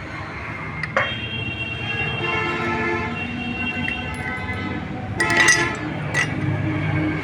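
Road traffic running past with vehicle horns sounding, over a steady low hum. There is a sharp metallic clink about a second in, and a louder burst near the end.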